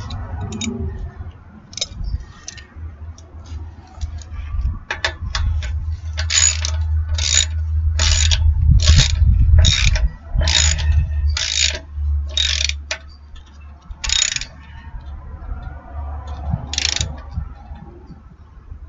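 Hand ratchet wrench tightening the mower engine's oil drain plug: a run of about ten short ratcheting strokes, roughly one a second, from about six seconds in, with one more stroke near the end.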